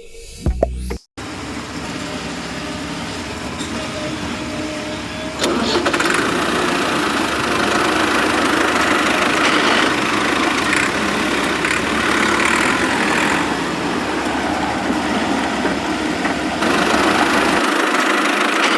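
An engine running steadily, starting abruptly about a second in and growing louder about five seconds in.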